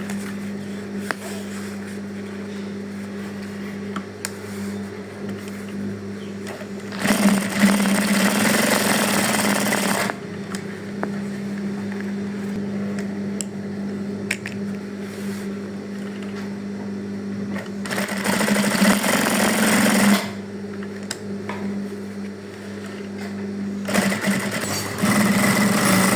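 Sewing machine motor humming steadily, with three louder runs of stitching as the machine is driven at speed, about seven, eighteen and twenty-four seconds in. It is being test-run after its rotary hook has been fitted.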